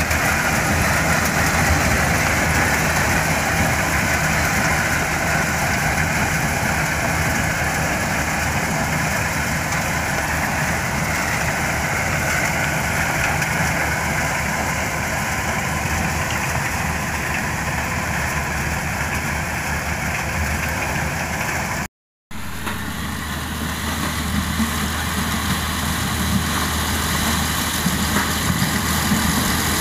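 Kubota DC-108X crawler combine harvester running steadily under load as it cuts and threshes dry corn stalks, with a diesel drone and the rushing of the threshing machinery. The sound breaks off completely for about half a second roughly three-quarters of the way through, then the same machine carries on.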